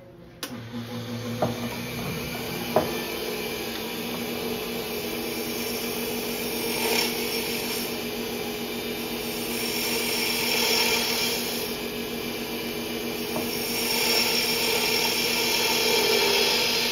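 Wood lathe starting up about half a second in and running with a steady hum, with a couple of sharp clicks soon after. A hand-held gouge then cuts the spinning wooden mallet blank in a few passes, each pass a swelling hiss of shavings coming off, the last and longest near the end.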